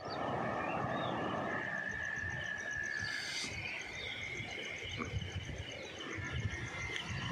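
Insects trilling steadily in a fast even pulse, with birds chirping now and then, over a continuous low rumbling noise.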